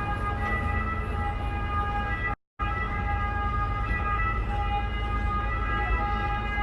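A water bus's motor running steadily underway: a low rumble with a steady multi-tone whine above it. The sound cuts out completely for a moment about two and a half seconds in.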